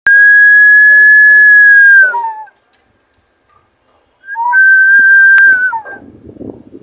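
Stovetop kettle whistling at the boil: two long, loud, steady high notes with a gap between them. Each bends down at its end and breaks briefly into a lower note as it dies away.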